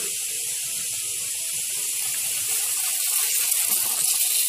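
Oil heating in a small ladle on a gas stove, sizzling with a steady hiss that turns louder and more crackly in the second half.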